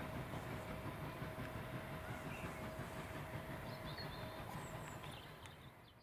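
Steam-hauled train running on the line, the low rumble of its wheels and carriages slowly fading as it draws away, with faint bird chirps over it.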